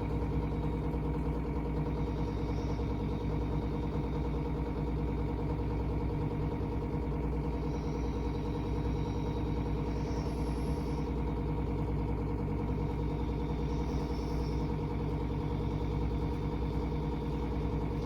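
A steady low mechanical hum made of several constant tones that never change in pitch or level, with faint higher hiss coming and going a few times.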